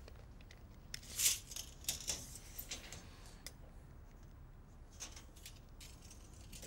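Light handling sounds of a tape measure and pencil on a plasterboard sheet: scattered small clicks and taps, and short scratchy pencil strokes, the loudest about a second in.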